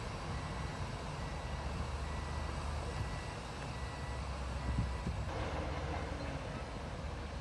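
Diesel engine of heavy earthmoving machinery running steadily with a low rumble, while a reversing alarm beeps at an even pace, with a single knock about five seconds in.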